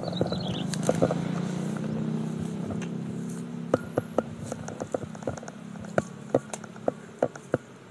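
A motor engine running steadily and slowly fading away, with scattered sharp clicks over it, more of them in the second half.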